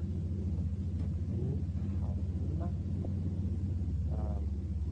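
Steady low hum or rumble in the background, with a few faint, brief murmured voice sounds.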